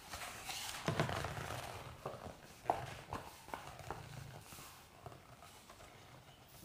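A few faint, sharp clicks and a soft rustle or breath close to the microphone in a small room, the clicks spaced irregularly about two to four seconds in.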